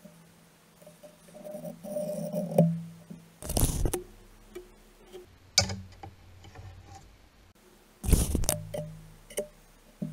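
A thin sheet of window glass being cut and handled on a padded blanket: two short scratchy rasps of about half a second each, with a single sharp crack between them and a few light knocks.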